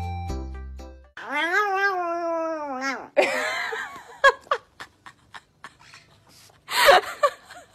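Background music stops about a second in. Then comes a long wavering animal call that rises and falls for about two seconds, followed by several short, harsh hissing and snarling bursts from a cat and a Chihuahua. The loudest burst comes near the end.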